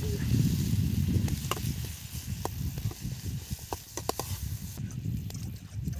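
Potato pieces tipped into a metal pan of cooking masala over a campfire, then stirred with a steel ladle: a faint sizzle, and several sharp clicks of the ladle against the pan between about one and a half and four seconds in. A low rumble runs underneath throughout.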